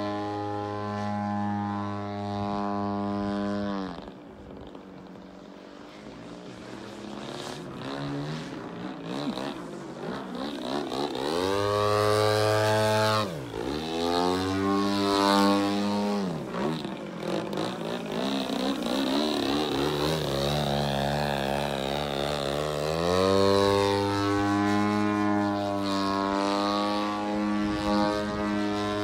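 RC model airplane's motor and propeller running overhead. It is throttled back about four seconds in and runs quieter for several seconds, then the pitch sweeps up and down as the plane manoeuvres and passes. Near the end it settles into a steady, louder note.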